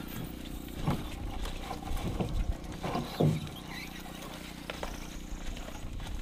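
Footsteps on a dirt trail and knocks from a canoe carried overhead: a few uneven thumps over a steady low hum.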